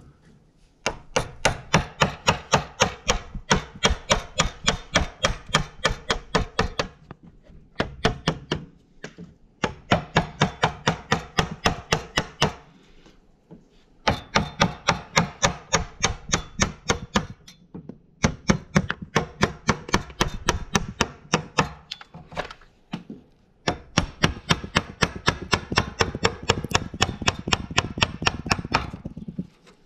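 Rapid chopping strikes on wood, about five a second, in runs of several seconds with short pauses between them. This is an edge tool knocking out the waste between closely spaced saw kerfs to bring a rough timber down to its line.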